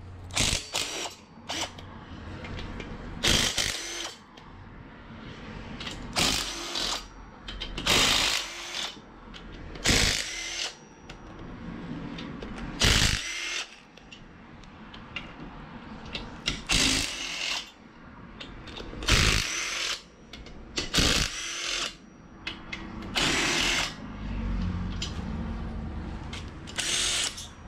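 Hand-held power tool running in short bursts, about ten of them two to three seconds apart, as it backs out the main bearing cap bolts of a Honda D16A block one by one, so the plastigage can be checked for main bearing clearance.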